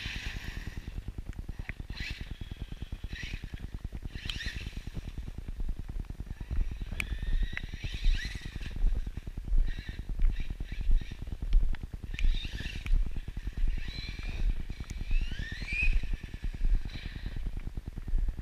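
Electric motor whine of an Axial Yeti XL RC truck, rising in pitch again and again as it accelerates. Under it runs a steady low rumble, with regular thumps about three every two seconds from about six seconds in.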